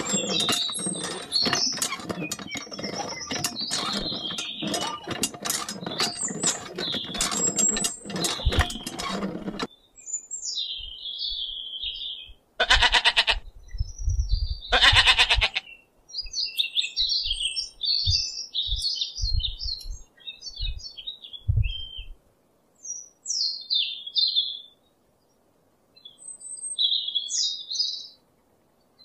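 Miniature model hand pump worked by hand, its handle and mechanism clicking and rattling rapidly for about ten seconds. It stops suddenly, and then birds chirp while a sheep bleats twice, loudly, with a few soft low thumps.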